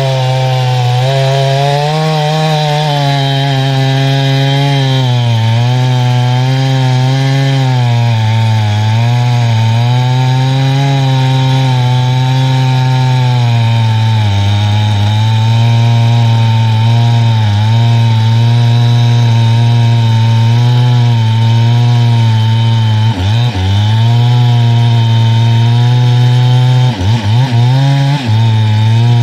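Jonsered CS 2172 W two-stroke chainsaw with Stihl RS chain running loud and steady while cutting through a large red oak log. The engine pitch sags and recovers under the load, with a few brief dips near the end.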